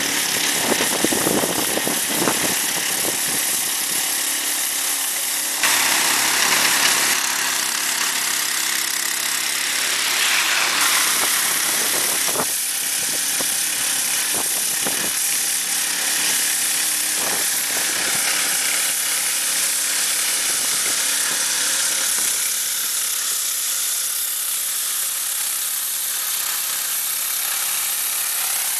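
Powered snow-sweeper brush driven by its 190 cc Honda engine, running steadily while the rotating brush sweeps and throws snow, with the utility vehicle's engine beneath it. It is a constant engine noise with a strong hiss, and the sound shifts abruptly about six and eleven seconds in.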